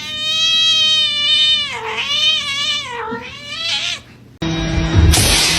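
A cat yowling: one long, drawn-out meow that sags in pitch and rises again twice, lasting about four seconds. After a brief lull, a noisier, louder stretch of sound begins near the end.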